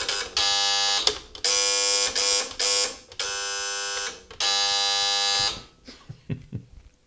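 Call buzzers of a PTT SE5 semi-electronic key telephone system, set off from one telephone's call buttons: about five harsh buzzes of about a second each with short gaps, stopping about five and a half seconds in, followed by a few faint clicks.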